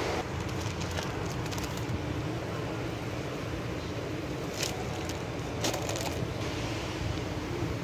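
Plastic grocery packaging crinkling as packs are handled and put into a wire shopping cart, a few short crinkles, the clearest about halfway through and again around six seconds in, over a steady low store hum.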